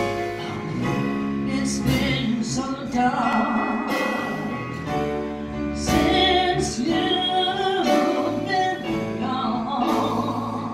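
A woman singing into a handheld microphone over an instrumental accompaniment, amplified through a PA.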